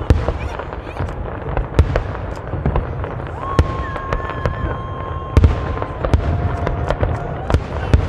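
Fireworks display: a rapid, irregular series of sharp bangs and cracks from bursting shells over a constant low rumble, with the biggest reports just after the start, near two seconds and about halfway. Long, nearly steady whistling tones ring out over the bangs in the second half.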